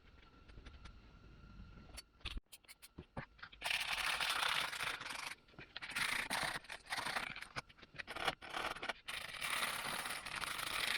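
Hand scrubbing of rusty screwdriver parts, in rough, rasping scraping strokes that come in long runs with short breaks, beginning about three and a half seconds in. A few light clicks and taps come before it.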